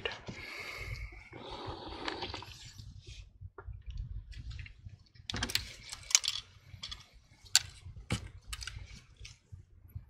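Quiet handling noises from gloved hands working inside an open laptop: soft rustling for the first few seconds, then a scatter of light clicks and taps as a small precision screwdriver is brought to a screw.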